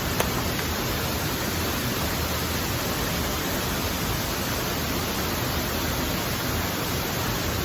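Steady, even rushing of a waterfall, with a single faint click just after the start.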